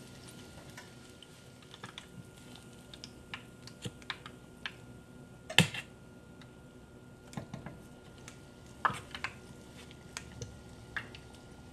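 Sparse light clicks and taps over a faint steady hum, with one sharper knock a little past halfway.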